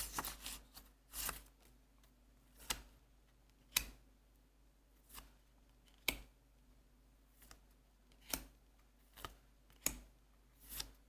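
Trading cards being moved one at a time through a hand-held stack: a dozen or so short, crisp card snaps and swishes, spaced irregularly about a second apart, all fairly quiet.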